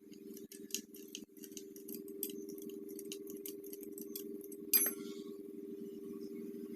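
Small metal parts and tools being handled: a run of irregular metallic clicks and taps, then one sharp metal clink that rings briefly about five seconds in, over a steady low hum.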